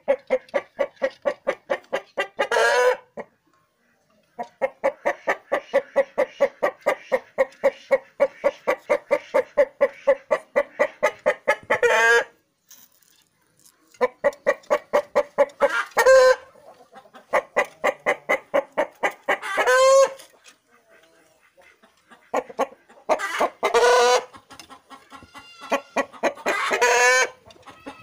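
Chickens clucking in long, fast runs of about eight clucks a second, each run ending in a louder drawn-out squawk, repeated about six times with short pauses between.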